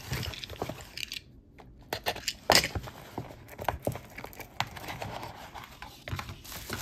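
A small jewelry box and its wrapping being handled and opened: irregular crinkling with scattered clicks and taps. There is a short lull just over a second in, and the loudest click comes about two and a half seconds in.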